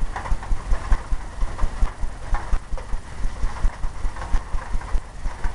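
A paint brush scrubbed quickly back and forth on a stretched canvas, working in oil paint, with a dull thump from the canvas at each stroke, about four or five strokes a second.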